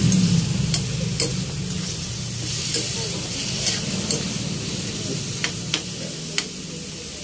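Diced pork frying in oil in a pan, sizzling steadily while it is stirred, with a few sharp clicks scattered through the stirring.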